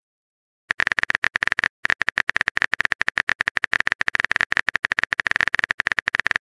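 Phone keyboard typing sound effect: rapid, even clicks, about ten a second, as a text message is typed out. It starts about a second in and breaks off briefly once.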